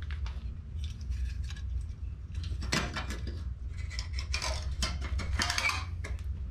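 Light metallic clinks and rattles, thickest about three seconds in and again from about four to six seconds, over a low steady hum.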